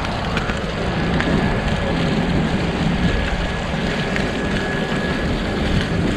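Steady rushing noise of wind on the microphone and bicycle tyres rolling over a rough, muddy dirt road, with a few faint clicks and rattles.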